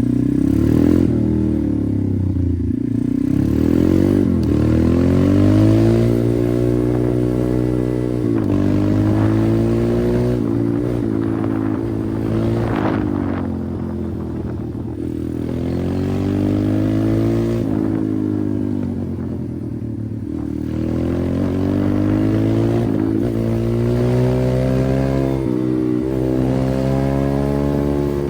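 Pit bike engine under way, its revs repeatedly climbing and dropping back every few seconds as it is ridden.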